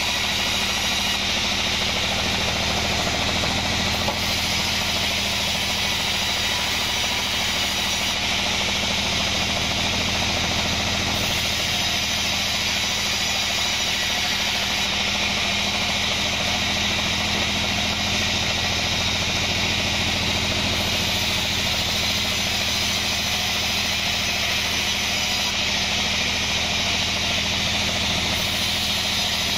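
Band sawmill running steadily with its blade cutting lengthwise through a kenanga wood beam: a constant machine hum under the hiss of the blade in the wood.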